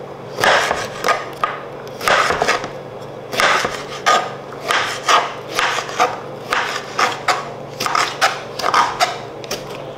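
Kitchen knife slicing tomatoes on a plastic cutting board, a short knock each time the blade comes down on the board, about two a second.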